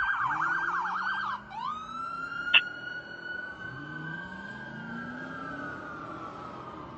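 Emergency vehicle siren on a responding fire apparatus: a rapid yelp for about a second and a half, then it switches to a slow wail that climbs and then falls gradually. Under it the truck's engine rises in pitch again and again as it accelerates, and there is a single sharp click about two and a half seconds in.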